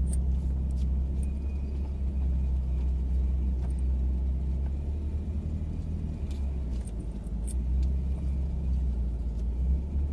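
Ford Raptor's twin-turbo V6 running steadily at low revs, heard from inside the cab as the truck crawls up a rocky trail, with a few light clicks and rattles.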